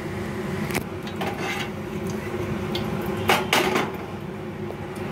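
Whole bay leaves sizzling in hot oil in a pressure cooker, over a steady hum. There are a few sharp clatters of kitchen utensils and pots, the loudest past the middle.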